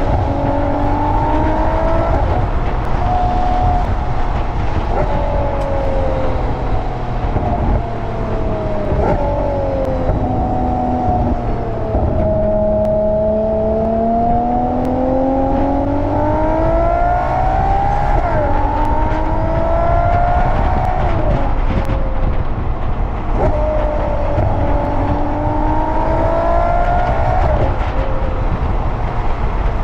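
Ferrari 12Cilindri's naturally aspirated V12 running under load. Its pitch climbs and then drops sharply several times as the 8-speed dual-clutch gearbox shifts up, with a slower fall and rise partway through, over a steady low rumble.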